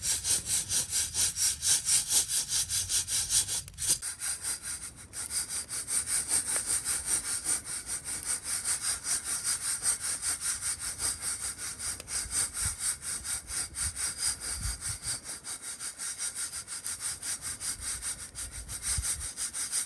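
Coffee beans rattling and swishing inside a mesh hand roaster, shaken back and forth in a fast, even rhythm of several strokes a second.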